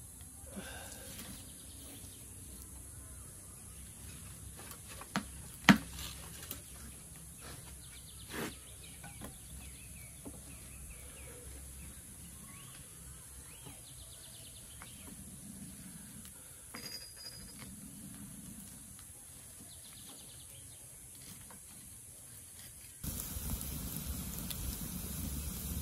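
Light knocks and clicks of firewood being handled in a concrete wood stove's firebox, the loudest a single sharp click about six seconds in. Near the end a steady rushing noise comes in as the wood fire burns.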